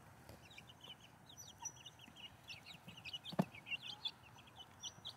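Chicks peeping in a bucket: many short, high, falling calls, several a second and overlapping, with a single sharp knock about three and a half seconds in.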